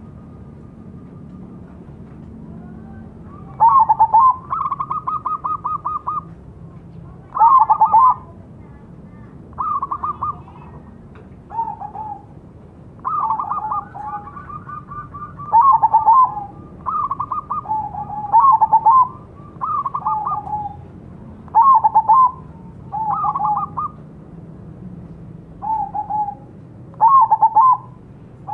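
Crossbred zebra dove (perkutut) cooing in repeated phrases every one to two seconds. Each phrase is a quick run of clipped notes ending in rolling coos, and some phrases are pitched lower than others.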